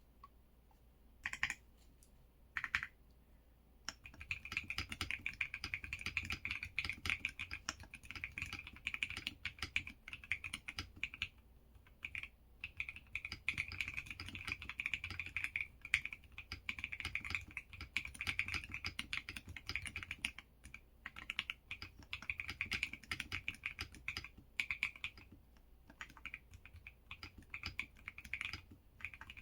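Typing on an EPOMAKER x LEOBOG K81 Pro mechanical keyboard: two single key presses, then from about four seconds in a fast, steady stream of keystroke clacks, broken by a few short pauses.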